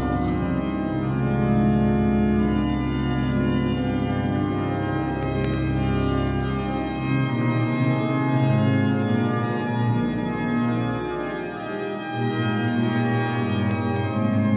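Pipe organ playing slow, sustained chords, with deep bass notes that stop about halfway through.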